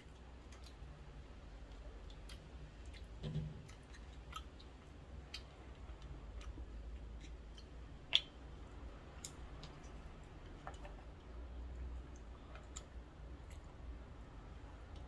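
Mukbang eating sounds: quiet chewing with scattered small clicks and taps of wooden chopsticks against mussel shells and the metal pot, one sharper click about eight seconds in, over a low steady hum.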